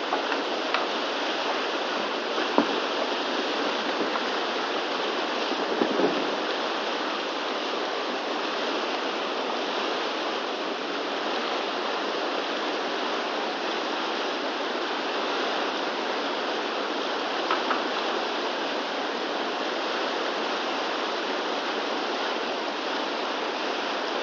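Whitewater river rapids rushing steadily, with a few short, sharp sounds over the flow.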